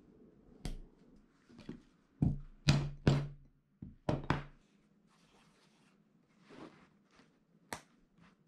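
White-faced mallet striking a folded denim pocket on a hard slab to flatten the fold: about five heavy thunks between two and four and a half seconds in. Lighter knocks and clicks of handling come before and after.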